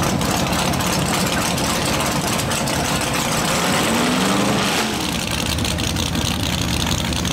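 A drag-racing pickup truck's engine idling with a steady, choppy low rumble. It rises briefly in pitch about four seconds in.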